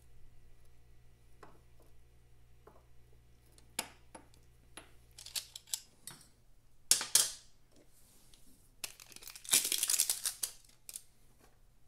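A new K&N oil filter and its cardboard box being handled and unpacked: scattered light clicks and knocks, then louder bursts of crinkling, rustling packaging, the loudest about seven seconds in and a longer stretch near the end.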